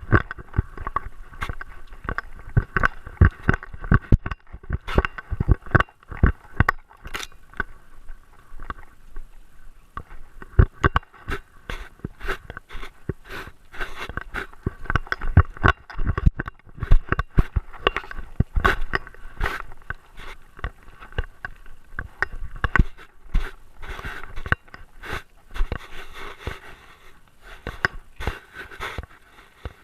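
Rapid, irregular knocking and scraping from a GoPro Hero 3 Black strapped to a walking dog: the camera and its mount jolt and rub with every step.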